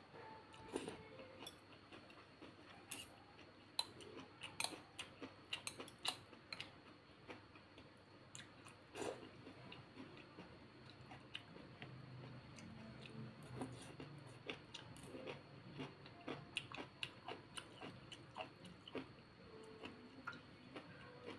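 Quiet close-up chewing of brown rice noodles, with many small wet mouth clicks scattered throughout.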